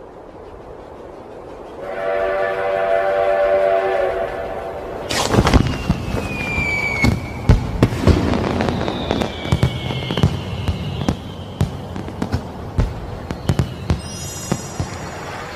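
Dubbed-in sound effects: a horn chord like a train horn sounds for about two and a half seconds. Then comes a string of firework bangs and crackles with whistles falling in pitch.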